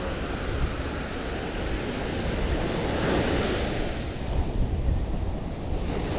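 Ocean surf breaking and washing up the sand, with wind buffeting the microphone; one wash swells up about three seconds in.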